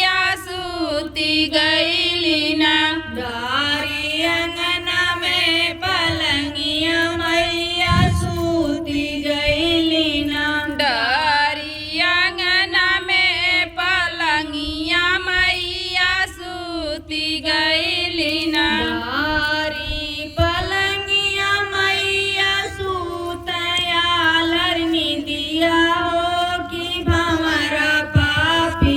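A woman singing a folk song in long held, wavering notes. A few low thumps come in, one about eight seconds in and a couple near the end.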